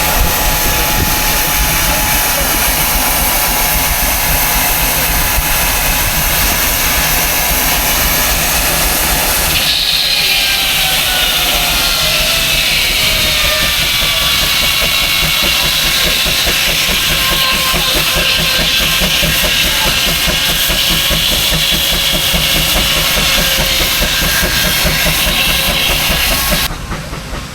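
Old steam engine running with a steady hiss of escaping steam. About ten seconds in, the sound changes to a louder, higher hiss with several tones slowly falling in pitch.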